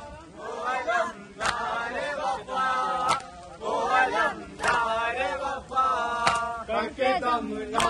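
A group of men chanting a Muharram mourning chant (noha) in unison. Sharp beats keep time about every second and a half.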